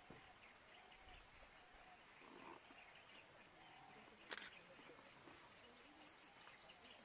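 Near silence: faint outdoor ambience with scattered distant bird calls, a single sharp click about four seconds in, and a quick run of about ten high chirps near the end.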